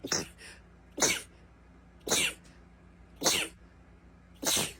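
A person's sneezing fit: five short, sharp sneezes in quick succession, about one a second.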